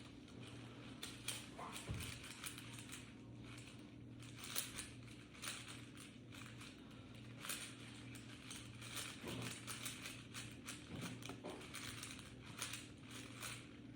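Plastic 4x4 Rubik's cube being turned, its layers giving a quick, irregular run of faint clicks and clacks.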